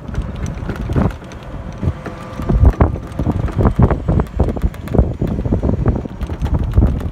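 Wind buffeting the microphone: irregular low rumbling gusts that rise and fall, with scattered small clicks.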